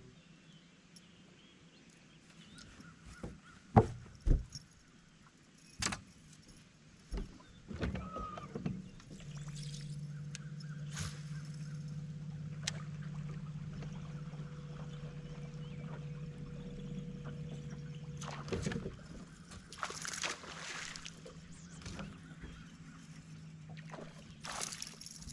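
A bass boat's bow-mounted electric trolling motor runs with a steady low hum for about nine seconds in the middle, then a fainter hum carries on. Before it come a few sharp knocks, and near the end there are brief hissing, splashy bursts.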